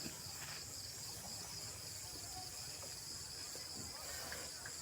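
Steady, unbroken high-pitched chorus of crickets.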